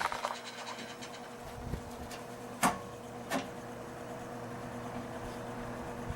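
Vintage LeJohn hassock fan running, its electric motor giving a steady hum under the rush of air. Two sharp clicks stand out, about two and a half and three and a half seconds in.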